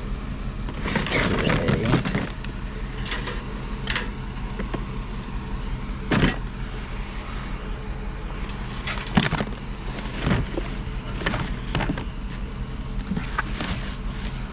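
Scattered knocks, clanks and rattles of junk items being picked up and moved, over a steady low hum that sounds like an idling vehicle engine.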